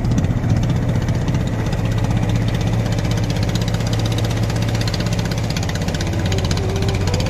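Wooden river boat's engine running steadily under way, a low, fast, even chugging.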